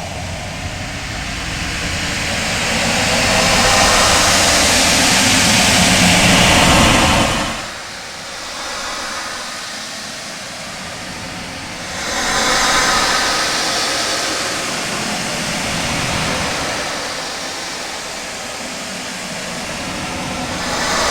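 Synthetic outer-space ambience sound effect: loud, dense rushing noise that swells and fades in slow waves. The deep rumble drops out abruptly about seven and a half seconds in, leaving a thinner hiss that swells again around twelve seconds and near the end.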